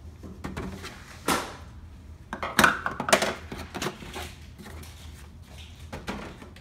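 Kitchen utensils and containers being handled and set down on a counter: a series of clicks and knocks, loudest about two and a half and three seconds in, over a steady low hum.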